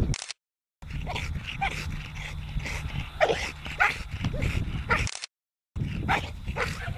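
A dog whining in short high whimpers and yips, repeated many times over a steady low rumble. The sound drops out completely twice, for about half a second each, near the start and about five seconds in.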